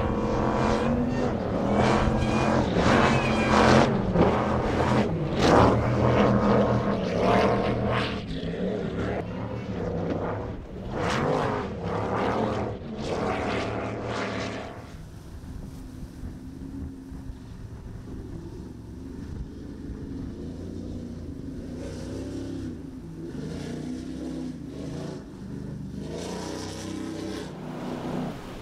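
Cigarette offshore powerboat engines running hard at speed, their pitch rising and falling as the boats bounce through the waves. About halfway through the sound drops abruptly to a quieter, steadier engine drone, then grows louder again near the end.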